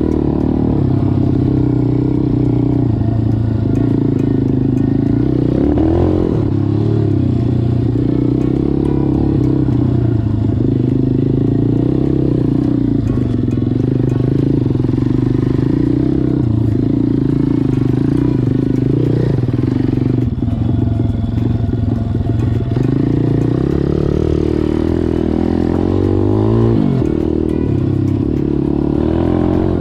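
MRF 140 RC-Z pit bike's four-stroke single-cylinder engine running while the bike is ridden along a dirt trail. Its pitch rises and falls with the throttle, with a quick rev up and back about six seconds in and again near the end.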